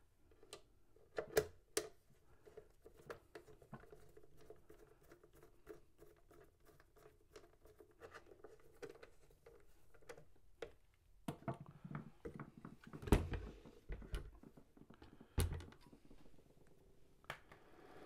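Screwdriver driving screws into the back cover of an Elmo ST 1200 projector, with faint scattered clicks and ticks. A few louder knocks come about two-thirds of the way through as the cover is handled.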